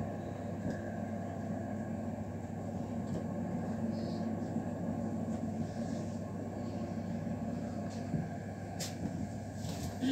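Cabin noise of an EN81 electric multiple unit under way: a steady rumble of wheels on rail and running gear, with a low steady hum. A couple of sharp clicks come about eight and nine seconds in.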